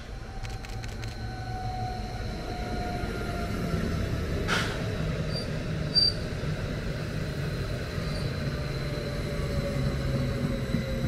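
Westfalenbahn Stadler FLIRT electric multiple unit passing close along the platform: a low rumble of wheels on rail under a faint electric whine that falls slowly in pitch. There is a click about four seconds in and brief high squeaks a second or so later.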